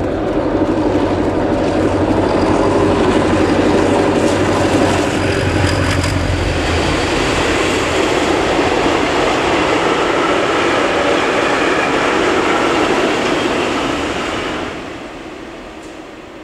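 Diesel locomotives M61.001 and T678.0012 hauling a freight train past. A deep engine drone dominates for about the first six seconds as the locomotives go by, then the steady rolling noise of the wagons passing, which falls away about fifteen seconds in as the end of the train passes.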